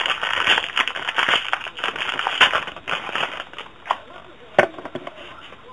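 A trading-card pack's wrapper being torn open and crinkled by hand for about three and a half seconds, then a few separate sharp clicks.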